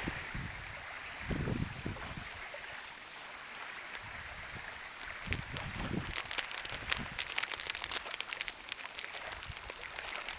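Small waves washing and lapping on a sandy shore, with a dog splashing through the shallow water in a run of quick splashes from about halfway in. Wind buffets the microphone in low rumbles now and then.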